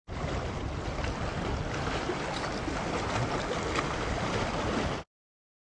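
Water washing and splashing over shoreline rocks, a steady rush that cuts off suddenly about five seconds in.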